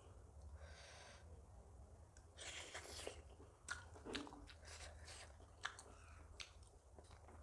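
Faint close-up eating sounds: chewing with wet mouth smacks and scattered small clicks.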